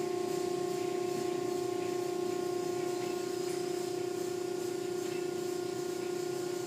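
Automatic tunnel car wash heard from inside the car: a steady machine hum at one pitch over the hiss of water spray and foam, with the soft-cloth curtains sweeping across the car.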